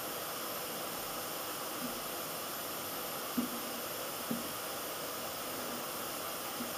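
Steady hiss, with a few soft taps as paper number cards are set down on a tabletop, the clearest two about three and a half and four and a half seconds in.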